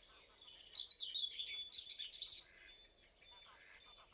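Small songbirds chirping and twittering in rapid, high-pitched notes, busiest in the first two seconds or so and softer after that.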